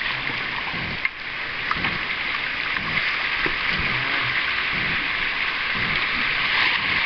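Shallow river riffle running fast around a canoe: a steady rushing hiss of broken water that grows a little louder toward the end.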